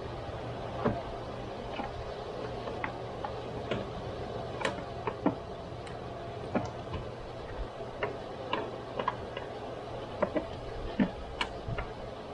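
Irregular light clicks and taps of a hand tool prying at a plastic wiring-harness clip on a radiator cooling fan, over a steady low hum.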